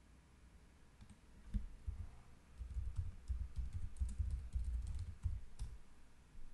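Typing on a computer keyboard: a quick run of key strikes that starts about a second in and stops near the end.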